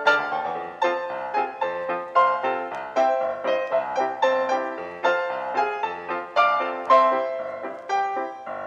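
Background piano music: a quick, steady run of struck notes, several a second.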